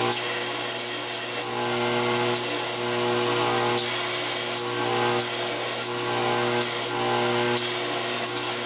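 An electric power tool's motor runs steadily with a constant hum. A hissing, rubbing noise swells and fades in short, irregular spells as the tool works the steel.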